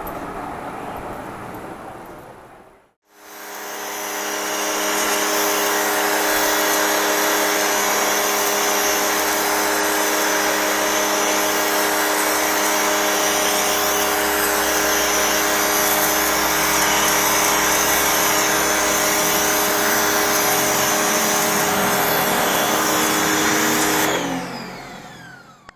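Electric pressure washer running, its motor and pump humming steadily under the loud hiss of the water jet striking concrete paving. It comes in about three seconds in and cuts off near the end.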